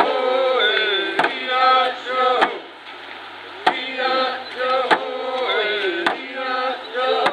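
Voices singing a slow, chant-like song together, over steady drum beats about one every 1.2 seconds.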